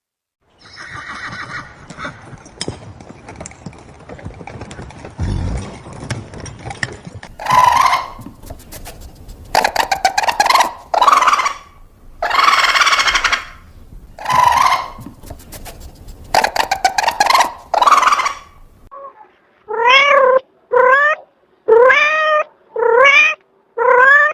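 Cat meowing again and again in calls of about a second each, ending in a run of five short meows that each rise in pitch, about a second apart.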